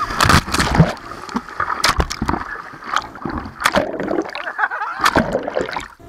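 A heavy splash as riders are thrown off an inflatable banana boat into the sea, then churning, gurgling water over the camera as it goes under, with many sharp knocks and rushes of water. It drops off sharply near the end.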